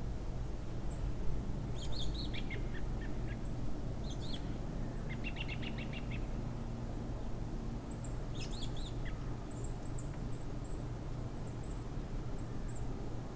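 Small birds chirping outdoors, with scattered short calls, a quick trill about five seconds in, and a run of high chirps in the second half, over a steady low background rumble.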